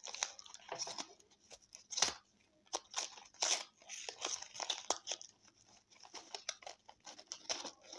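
A cardboard cigarette pack being torn apart by hand: irregular tearing and crinkling of card and paper, loudest about two seconds in and again about three and a half seconds in.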